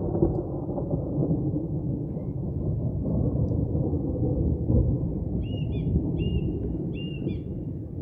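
Long rolling thunder from an approaching squall line: a continuous low rumble that swells and eases and tapers off slightly near the end.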